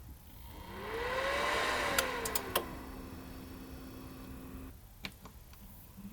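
Power supply's original cooling fan spinning up and slowing back down, the cycling winding noise: a whir that swells as its pitch rises and then falls again over about two seconds, with a few clicks near the peak. This is the fan ramping up from 0 RPM and stopping again every few seconds, the loud fan behaviour that prompted its replacement.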